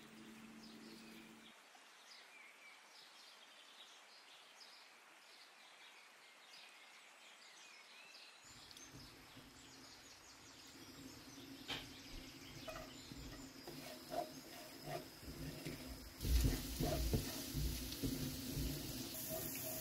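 Minced garlic sizzling in hot oil in a non-stick frying pan, stirred with a spatula. The sizzle comes in sharply about sixteen seconds in and is the loudest sound. Before it, the sound is quiet, with faint high chirps and a few clicks.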